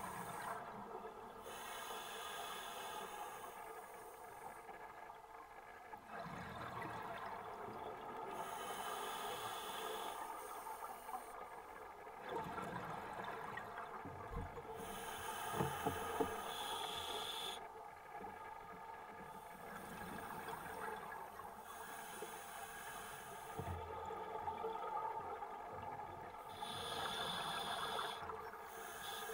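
Underwater recording with a scuba diver's breathing: a hissing, bubbling swell comes and goes every few seconds over a steady underwater drone.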